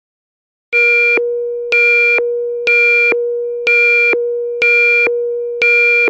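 Electronic emergency-broadcast attention tone announcing an official government alert. A steady low tone holds throughout while a higher tone pulses over it six times, each pulse about half a second long and about one a second apart, each fading a little before the next. It starts under a second in.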